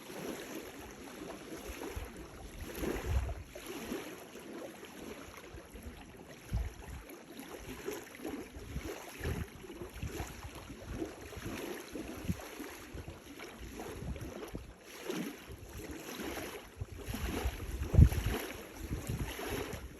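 Small lake waves lapping and washing on the shore, with wind buffeting the microphone in gusts, the strongest near the end.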